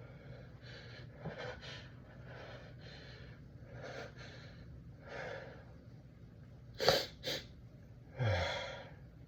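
A person's halting, gasping breaths as a sneeze builds, then about seven seconds in a sudden sneeze in two quick bursts, followed by a short voiced exhale that falls in pitch.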